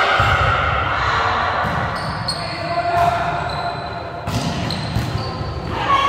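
Indoor volleyball game in an echoing gym: sharp knocks of the ball being struck, with players and spectators calling and shouting over them.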